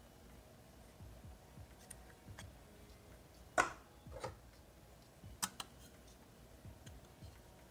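Small plastic clicks and taps as accessories are handled and fitted onto a mini LED video light. The sharpest click comes about three and a half seconds in, another follows shortly after, and a quick double click comes about two seconds later.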